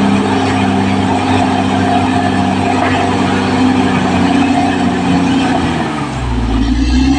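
Caterpillar D6R XL bulldozer's diesel engine running steadily under working load. About six seconds in, the engine note drops and a deep low rumble swells.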